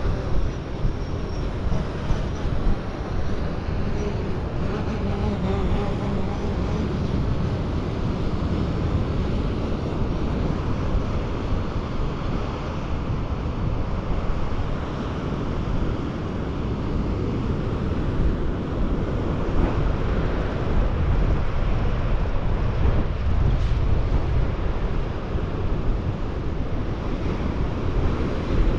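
Strong wind buffeting the microphone over the steady rush of surf breaking on the beach.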